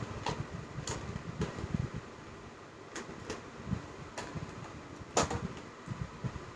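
Clear plastic pouch of lipsticks being handled: scattered clicks, knocks and crinkles, the sharpest click about five seconds in.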